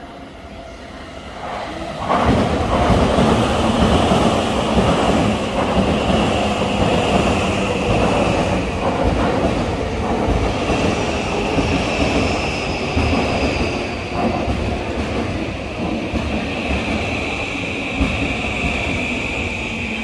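A JR East E235 series Yokosuka Line electric train pulls into the platform. Its wheels-on-rail running noise swells to loud about two seconds in and carries on steadily. From about halfway a steady high whine joins it.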